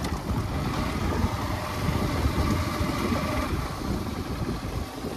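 Motorcycle engine running steadily at low speed, with a choppy low rumble.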